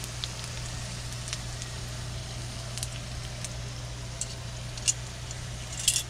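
Egg rolls frying in hot oil in a pan: a steady sizzle with scattered sharp pops and crackles, a quick cluster near the end the loudest, over a low steady hum.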